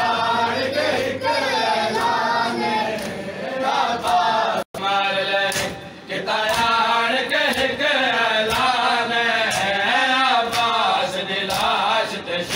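A group of men chanting a noha in unison, with a steady beat of open-hand slaps on bare chests (matam) keeping time with the chant.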